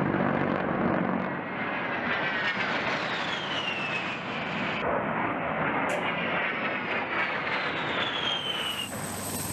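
An A-10 Thunderbolt II's twin turbofan engines passing low overhead: a steady jet rush with a high whine that slides down in pitch as the jet goes by. This happens twice, with an abrupt cut between the passes about five seconds in.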